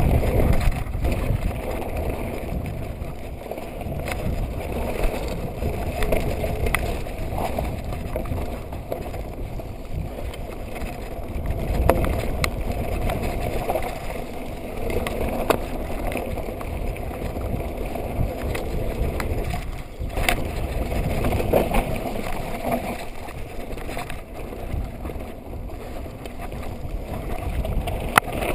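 Mountain bike descending a rough dirt trail at speed: a steady rumble of tyres on dirt and wind on the microphone, with scattered sharp knocks and rattles as the bike goes over bumps.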